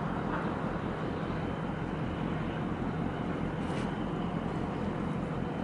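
Steady low rumble of a container ship and its harbour tug running close by, over the wash of choppy harbour water.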